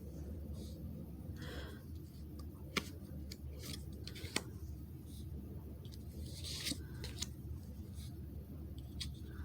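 Magic: The Gathering trading cards being handled and separated: faint rustling and sliding with a few sharp little clicks, over a low steady hum.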